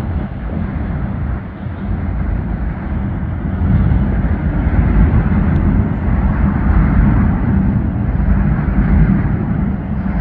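Passenger train running across a steel truss railway bridge, a steady rumble mixed with the rush of wind on the microphone, growing louder about four seconds in.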